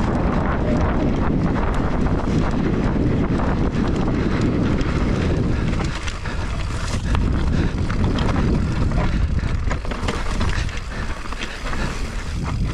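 Mountain bike riding a dirt singletrack: wind buffeting the camera microphone over the tyres rolling on dirt and rock, with frequent knocks and rattles from the bike over bumps. The low rumble eases from about six seconds in.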